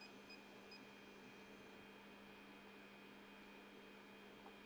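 Near silence: faint room tone with a steady electrical hum.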